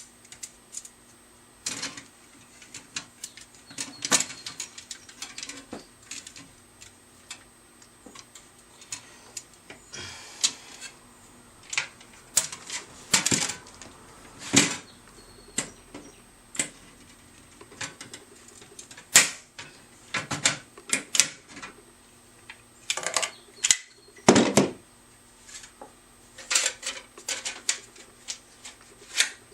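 Steel fan blades clicking and clinking against one another in irregular, sharp knocks as they are handled and fitted together during assembly.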